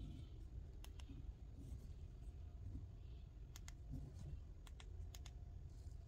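Sharp clicks of the Wuben L1 flashlight's side switch being pressed, a few single presses and quick double clicks, over a low room hum.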